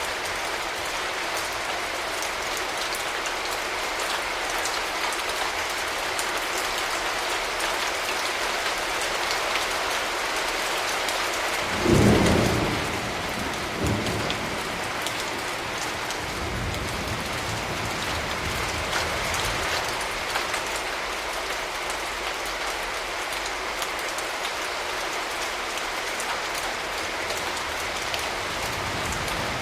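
Steady rain falling, with a sudden clap of thunder about 12 seconds in, a second smaller crack about two seconds later, and a low rumble that rolls on for a few seconds after.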